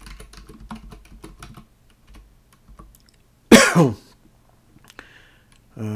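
Typing on a computer keyboard, a quick run of keystrokes over the first couple of seconds, then a single loud cough about three and a half seconds in.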